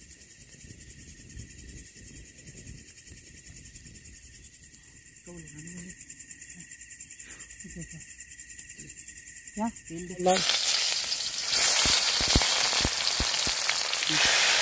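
Steady chirring of night insects; about ten seconds in, a loud sudden sizzle starts and keeps going as chopped tomatoes hit hot oil in a black iron wok over a campfire.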